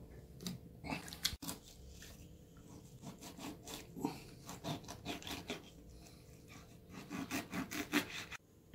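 Kitchen knife sawing and scraping through a sole as it is filleted against a wooden cutting board, in quick series of short strokes that stop abruptly shortly before the end.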